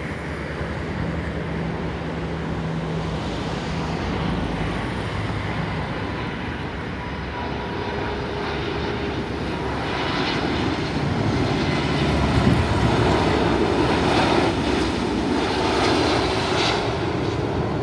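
Airbus A330 freighter's jet engines on final approach, a steady rumble that grows louder about halfway through as the plane comes closer.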